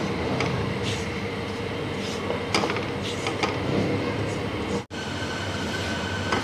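Spatula stirring and scraping dry maida and besan around a kadhai as they roast in ghee. It makes a steady, rough scrape with scattered ticks against the pan, and cuts out briefly about five seconds in.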